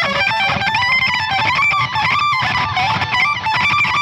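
Distorted electric guitar lead played through the Brainworx Diezel VH4 amp simulation plugin: a melodic solo line that bends and moves in pitch over a heavy metal backing with low rhythm parts.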